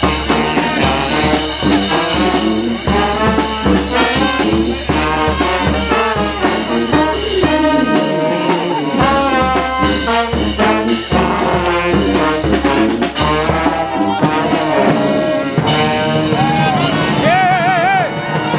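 Brass street band playing: trombones and trumpets over a steady bass drum beat. The drums break off briefly about eight seconds in and stop about fourteen seconds in, leaving the horns, with one wavering, shaken high note near the end.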